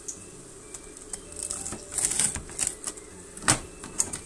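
A knife cutting through a deep-fried croquette's crisp breaded crust on a plate: a series of short crackling crunches and clicks, the sharpest about three and a half seconds in.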